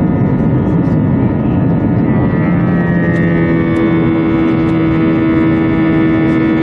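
Airbus A321's jet engines heard from inside the cabin during the climb after takeoff: a loud, steady rumble with humming tones, and a stronger steady hum that comes in about three seconds in.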